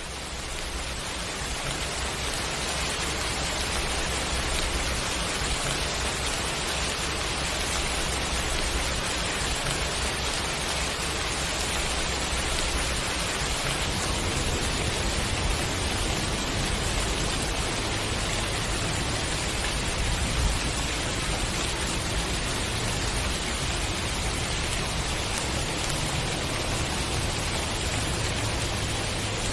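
Steady rain shower: an even hiss of falling rain with no separate drops standing out, swelling up over the first couple of seconds and then holding level.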